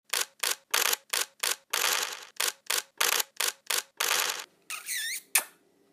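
Sound effects of an animated logo sting. About a dozen short noisy bursts come in an uneven rhythm, then a warbling whistle, and near the end one sharp pop, the loudest hit.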